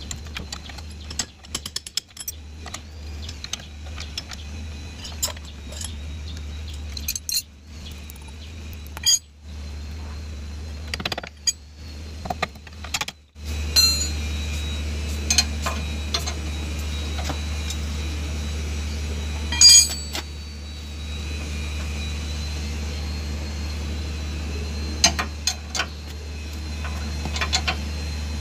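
Scattered metallic clinks and knocks of hand tools and steel suspension parts while a pickup's front spindle is fitted, over a steady low hum.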